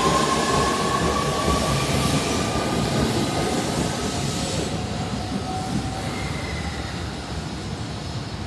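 JR East EV-E301 series battery-electric train pulling out of the station: its traction motors whine, rising slightly in pitch as it gathers speed over the rumble of the wheels on the rails, and the sound fades steadily as the train draws away.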